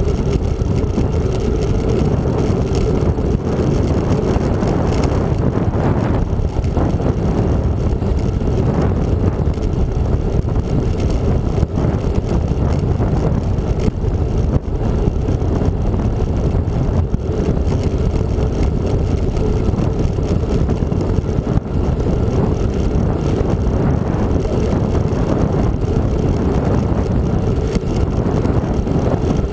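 Steady wind rushing over the microphone of a handlebar-mounted camera on a moving bicycle, with road noise from the ride underneath.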